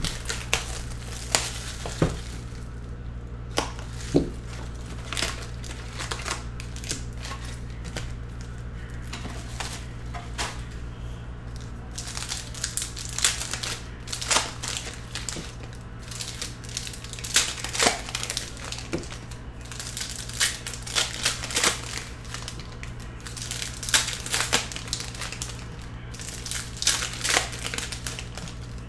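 Hockey trading-card pack wrappers crinkling and tearing as packs are ripped open by hand, in a string of irregular crackles and rips, over a steady low hum.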